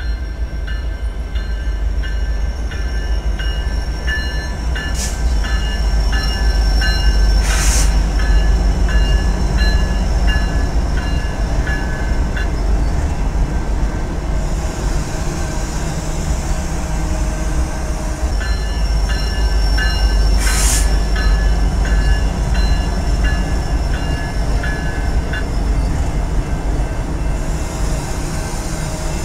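A train rolling past with a steady heavy rumble of wheels and cars. Runs of short high squeaks repeat more than once a second, and a few sharp clanks come through, one about five seconds in, one near eight seconds and one near twenty-one seconds.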